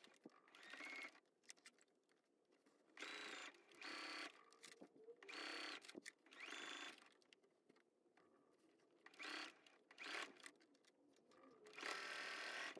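Electric sewing machine stitching in several short, faint runs, each under a second, with pauses between them as the fabric is guided along the edge.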